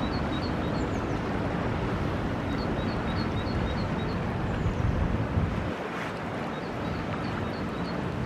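Steady low rumble of wind on the microphone, with a small songbird singing three short bouts of quick, high two-note chirps.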